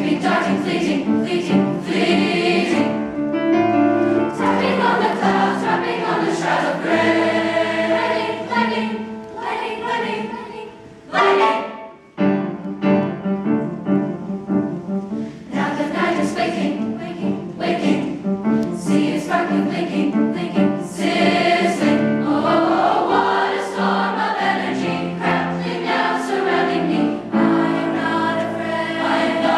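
Honor choir singing in several parts. About eleven seconds in there is a sudden loud accent, then a brief drop in level before the full choir comes back in.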